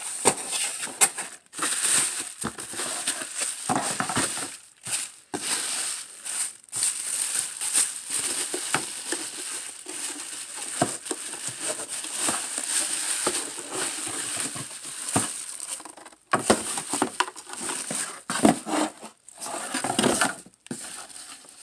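Packaging crinkling and rustling with sharp crackles and small clicks as a new truck tail light is unwrapped and handled.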